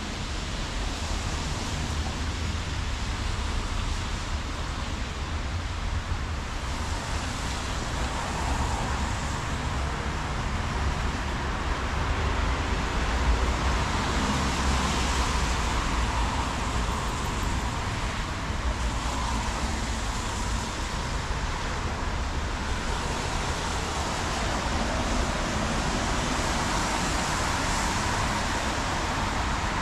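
Road traffic on wet asphalt: the hiss of car tyres on the rain-soaked road, swelling and fading several times as cars pass, over a steady low rumble.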